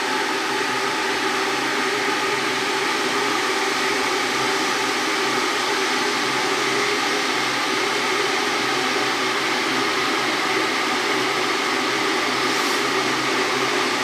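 Small electric water-heating machine running as its water heats toward the boil: a steady hiss with a faint hum under it.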